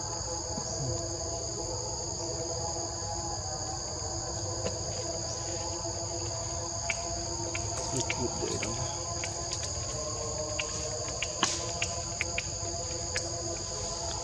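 Steady high-pitched insect chorus of two unbroken high tones, with a lower steady hum beneath. Scattered faint clicks come through, mostly in the second half.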